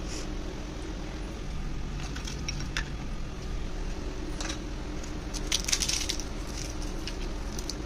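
A crisp fried dough piece being crushed by hand over a plate of chaat: a few crackles about two and a half seconds in, then a louder cluster of crunching crackles a little before six seconds, over a steady low hum.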